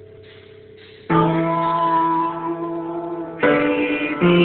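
A low hum for about a second, then keyboard chords: one struck about a second in and held for a couple of seconds, then two more struck in quick succession near the end.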